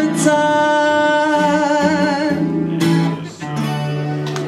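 Singer holding the song's last note with vibrato over acoustic guitar, then the guitar closing with a final strummed chord that rings out.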